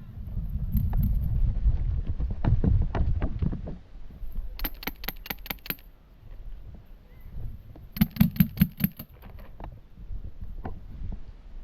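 Two rapid bursts of paintball marker fire, about six quick pops each, the first about halfway through and the second a few seconds later. A low rumble sits on the microphone in the first few seconds.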